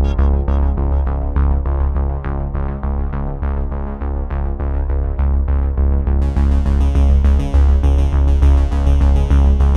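Electronic synthesizer music with a strong steady bass and quickly repeated notes; a brighter, fuller layer comes in about six seconds in.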